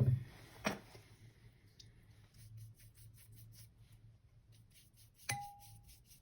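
Watercolour paper being wetted with water: soft, even strokes across the paper, about three a second. There is a knock at the start, and about five seconds in a single short ringing clink.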